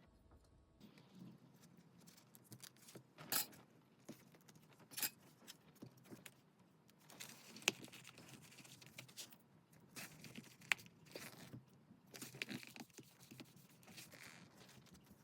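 Paper and stationery being handled while making a junk journal: soft rustling and crinkling of paper with scattered sharp clicks and taps.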